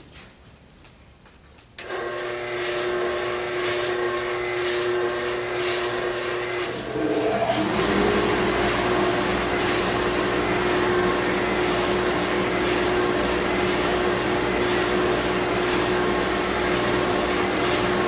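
Workshop machines start one after the other: a motor starts suddenly about two seconds in, and a second motor spins up with a rising tone around seven seconds. Both then run steadily while a wooden bird blank is sanded on an oscillating spindle sander fitted with a dust-extraction hose.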